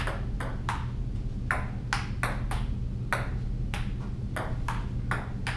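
Table tennis rally: a ping pong ball clicking alternately off paddles and the table, about a dozen sharp ticks at roughly two to three a second, over a steady low room hum.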